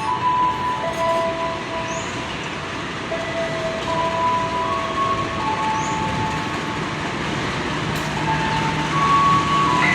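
Electric commuter train moving slowly on the track: a steady rumble and hiss with several held whining tones that switch from pitch to pitch, growing a little louder over the last two seconds.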